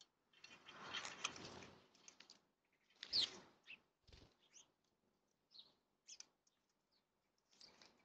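House sparrows at a water bowl: a brief rush of fluttering wings as they fly off, then scattered short high chirps, with one louder chirp falling in pitch about three seconds in.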